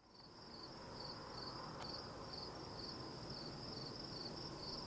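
Crickets chirping, a steady high trill with about two chirps a second over a soft hiss.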